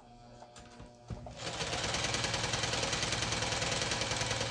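Singer 8280 household sewing machine, outer covers removed, standing still for about a second, then starting with a click and running steadily at speed during a test run after repair.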